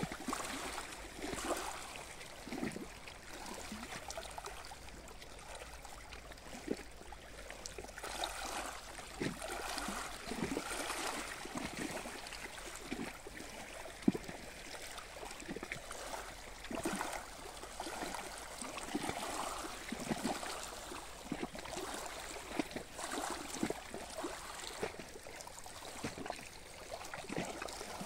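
Small waves lapping and sloshing at the edge of a reservoir, an irregular run of soft splashes. One sharp tap stands out about halfway through.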